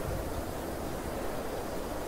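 Steady outdoor wind: an even rushing over the open field, with low rumbling of wind on the microphone and a slight gust right at the start.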